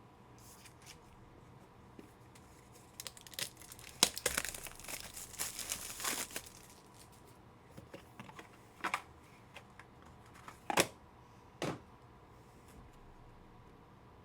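Foil trading-card pack wrappers crinkling and being torn open, a busy stretch of rustling in the middle, followed by a few separate sharp clicks as cards are handled.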